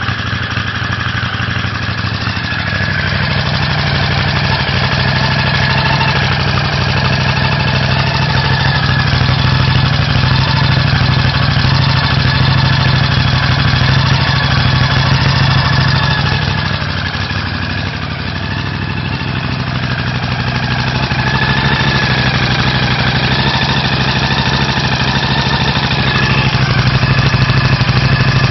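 Honda CX500 motorcycle's water-cooled V-twin engine idling steadily.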